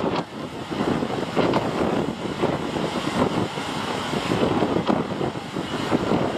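A fishing boat's engine running steadily under strong wind buffeting the microphone, the level rising and falling unevenly.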